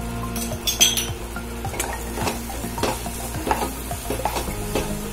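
Wooden spatula stirring and scraping thick moong dal halwa around a nonstick pan, in quick repeated strokes about every half second, over a soft sizzle of the halwa cooking in ghee.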